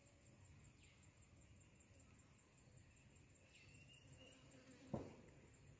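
Faint outdoor ambience: an insect chirping steadily in fast high pulses, several a second, with a few short falling calls and one sharp click about five seconds in.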